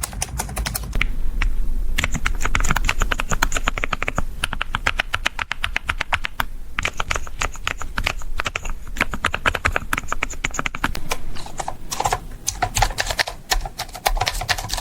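Typing on a computer keyboard: fast, dense runs of clicking keystrokes, with brief pauses about a second and a half in and again about six seconds in.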